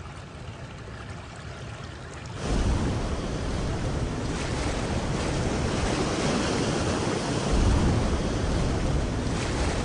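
Ocean surf rushing, a steady wash of water noise that grows louder about two and a half seconds in and swells again near the eighth second.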